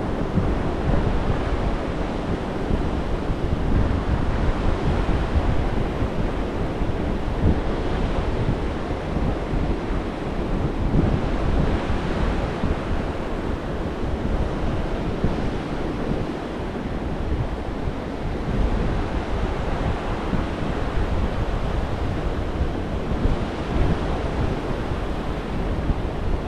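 Surf breaking and washing up on a sandy beach, with wind buffeting the microphone as a steady low rumble. The wash swells and eases a few times.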